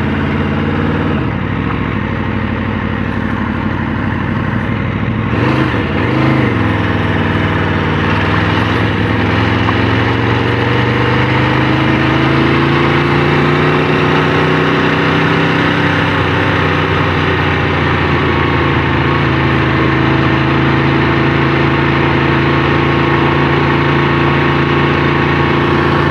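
Aprilia RSV4 RF's V4 engine running at low speed. Its pitch dips briefly twice in the first seven seconds, then slowly rises and holds steady.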